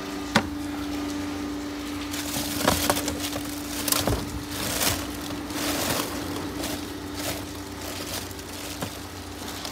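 Plastic food packaging and rubbish crinkling and rustling as hands rummage through a bin, with a sharp knock just after the start. A steady low hum sits underneath and stops about two-thirds of the way through.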